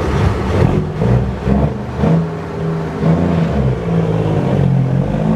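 Heavy diesel semi truck engine revving hard as the truck launches from the drag-race start. Its low drone steps up and down in pitch several times as it pulls away.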